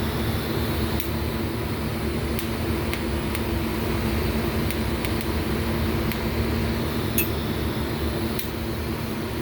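Steady hum and hiss of a hardface weld, cobalt-based rod being run onto an MGB camshaft lobe, with faint scattered ticks.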